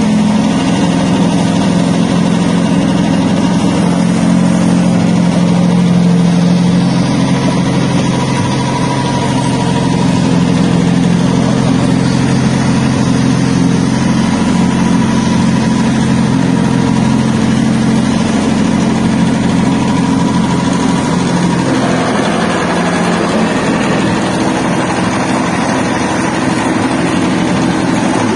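A motor-driven wet-soybean skin peeling and separating machine running steadily, with a low, even engine-like hum; the sound shifts a little more than twenty seconds in.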